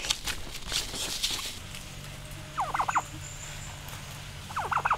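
Domestic turkey gobbling twice, each gobble a short, rapid rattling call: one about two and a half seconds in, the other near the end.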